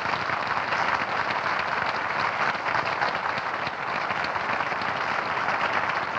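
Studio audience applauding steadily, welcoming a performer onto the stage.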